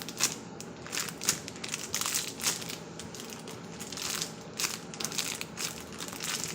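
Plastic packaging crinkling and rustling in irregular bursts as a packaged squishy toy is handled and turned over.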